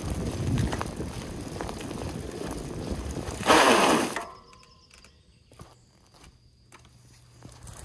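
Mountain bike rolling with rattling and clicks, then, about three and a half seconds in, a short loud hiss of air being let out of the rear tyre that dies away within a second. After it, only a few faint clicks.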